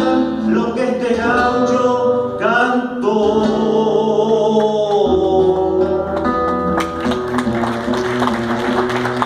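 A payador's male voice singing a verse with his own acoustic guitar accompaniment, holding a long note in the middle. The voice stops about six seconds in and the guitar strumming carries on alone.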